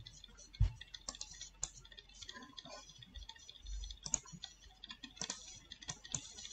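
Scattered, irregular clicks of a computer keyboard and mouse as values are typed and settings are clicked.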